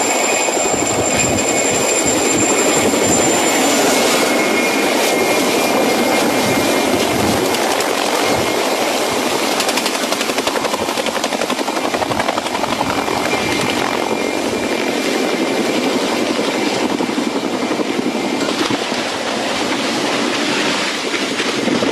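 Helicopter running: a loud, steady rush of rotor and engine noise with a fast chop. A thin high turbine whine fades out about four seconds in.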